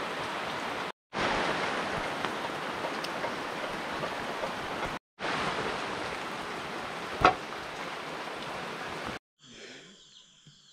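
Steady hiss of rain falling, broken off abruptly twice, with one sharp crack about seven seconds in. The last second or so is much quieter.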